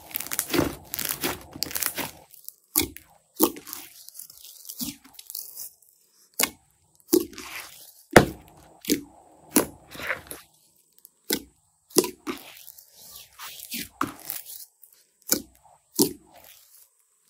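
Fluffy foam slime squeezed, pressed and stretched by hand in a plastic basin: a string of sharp crackles and pops, about one a second with short quiet gaps, from the air bubbles trapped in the slime.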